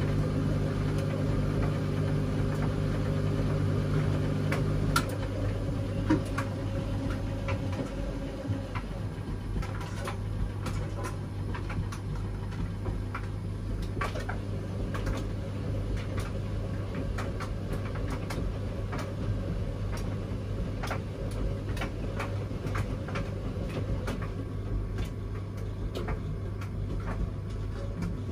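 Washing machine running mid-programme: a steady motor hum whose upper tones drop away about five seconds in, with scattered light clicks and knocks throughout.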